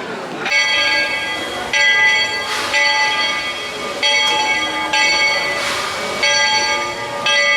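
A metal bell rung over and over at an even pace, about one stroke a second, each stroke ringing on until the next.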